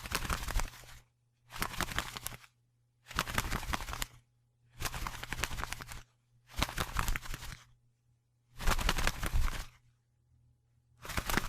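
Wings flapping in a run of separate flurries: about seven bursts of quick, rustling flaps, each lasting about a second, with short silent gaps between them.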